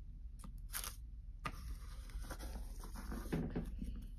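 Light clicks and taps of small plastic toy figures and paper being handled on a wooden tabletop, with a few sharp clicks in the first second and a half.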